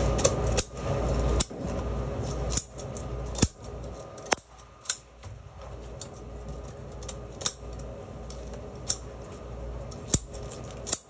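A fish being scaled and trimmed with a blade: irregular sharp clicks and scrapes, about one a second, as the blade works against hard scales.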